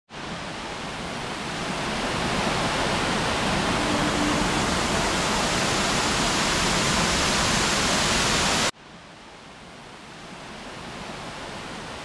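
Steady roar of a waterfall, growing louder over the first couple of seconds. Near the end it cuts off abruptly to a quieter rush of falling water, which slowly builds again.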